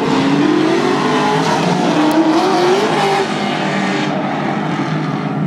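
Race car engine revving hard, its pitch climbing and dropping several times, over tyre squeal.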